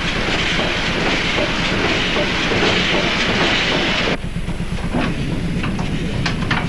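Steam tug Forceful's steam engine running smoothly, a fast steady beat under a loud steam hiss. The hiss cuts off suddenly about four seconds in, leaving the engine's beat and a few light clicks.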